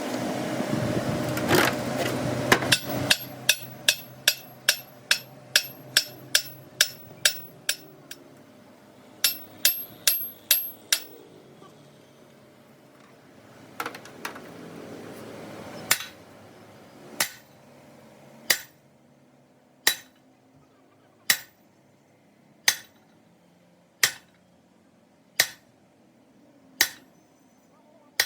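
Hammer striking metal: a quick run of blows about two a second with a thin metallic ring, a short pause, then single, evenly spaced blows about every second and a half.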